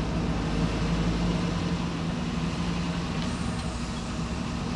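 Hummer H2's V8 engine running at steady low revs as the truck crawls up a rock ledge.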